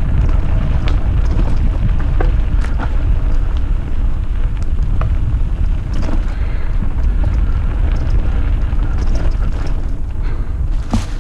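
Mountain bike riding over a rough, rocky trail: wind rumbling on the microphone with tyres rolling over stones and scattered clicks and rattles from the bike, and a sharp click near the end.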